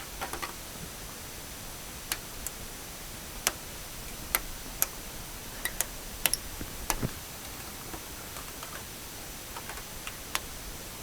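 Irregular light clicks and ticks, about a dozen at uneven spacing and some in quick pairs, over a steady hiss, as fishing line works the old emblem free of its adhesive on the car's paint.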